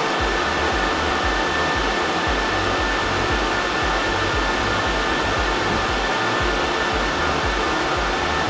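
Racks of Bitcoin ASIC miners running, their cooling fans making a loud steady rush with a high whine held on one note.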